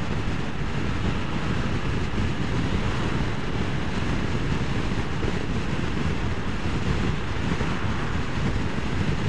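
Steady wind rush buffeting the microphone of a rider on a Vespa scooter at road speed, an even low roar with no breaks.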